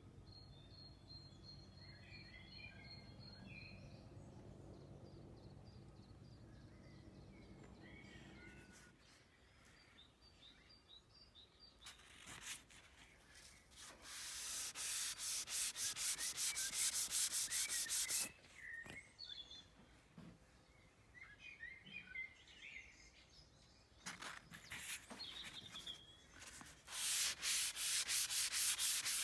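Hand sanding of a painted car part with a sanding sponge: fast back-and-forth scraping strokes, about five a second, in two spells of several seconds. Birds chirp in the gaps, and a low steady hum stops about nine seconds in.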